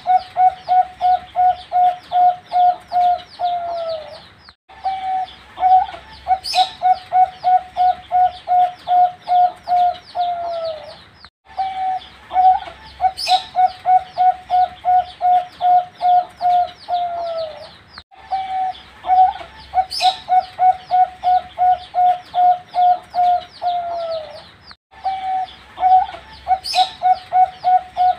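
Young zebra dove (perkutut) cooing in repeated phrases: a quick run of short, even notes ending in a drawn-out falling note. The phrase comes four times, about every seven seconds, each time broken off by a brief gap.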